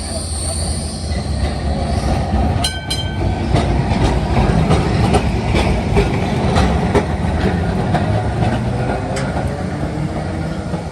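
A tram running past on rails: a steady rumble that grows louder and then eases off, with a high wheel squeal fading out at the start. A brief ringing strike comes near three seconds in, followed by repeated clicks of wheels over rail joints.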